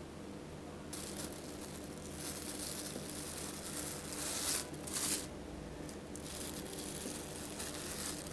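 Thin plastic freezer bag crinkling as it is folded around a portion of sliced cured beef. The rustling starts about a second in, with two sharp, loud rustles near the middle, a short lull, then more crinkling.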